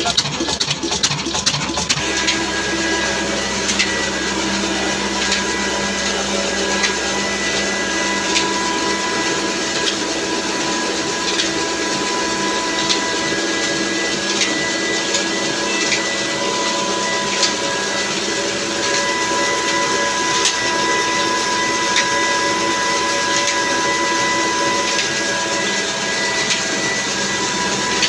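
About two seconds of a 22 hp diesel engine's rhythmic firing, then the belt-driven flour mill machinery running: a steady whir with whining tones and occasional sharp ticks.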